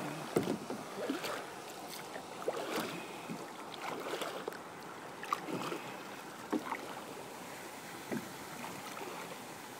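Kayak paddling on calm water: irregular small splashes and drips from paddle strokes over a steady wash of water against the hull.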